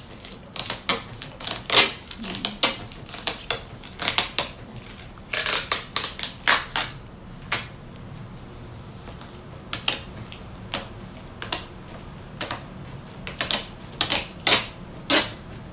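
White packing tape being pulled off a hand-held roll in short tugs and pressed onto a corrugated cardboard box: irregular runs of short, crackly rips and taps, with brief pauses between them.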